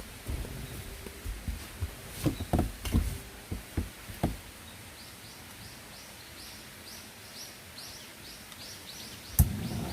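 A few knocks and thumps, then a bird calling a quick series of short, repeated high chirps, about two a second. A single sharp click comes near the end.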